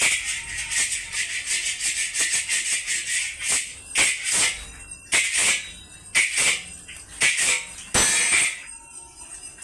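Long metal spatula scraping around the inside of a large iron kadai, with rapid strokes at first and then pairs of scrapes about a second apart; the scraping fades out near the end.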